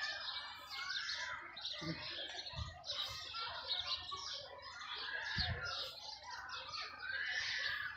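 Many birds chirping and twittering together without a break, with a few dull low bumps about two seconds in and again past the middle.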